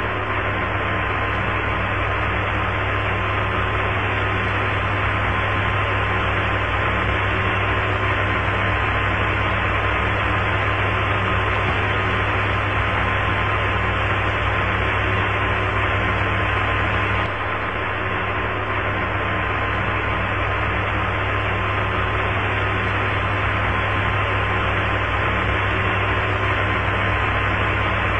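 Steady radio hiss from an open Apollo 11 air-to-ground voice channel with nobody talking, over a constant faint tone and a low hum.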